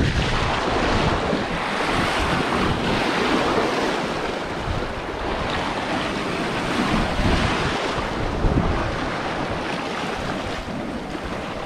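Sea surf surging and washing against rocks, swelling and easing every few seconds, with wind buffeting the microphone.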